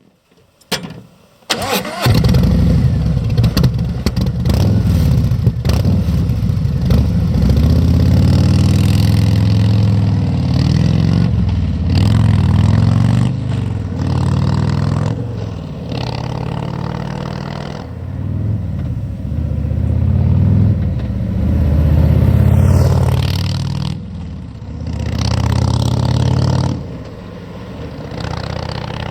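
Harley-Davidson Milwaukee-Eight V-twin breathing through Vance & Hines Twin Slash slip-on mufflers, on an otherwise stock, untuned bike. It cranks on the starter, catches about two seconds in, then idles with a throttle blip every few seconds, each rev rising and dropping back to idle.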